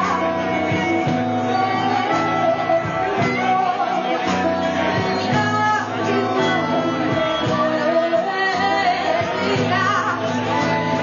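Live band playing a song, with a woman singing over guitars and drums.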